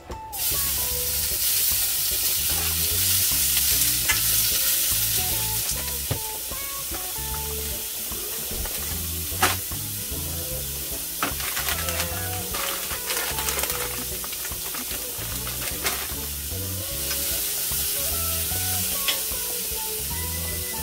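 Chopped food dropped into a hot stainless steel skillet starts sizzling abruptly, then fries steadily. A wooden spoon stirs it and now and then clicks and scrapes against the pan.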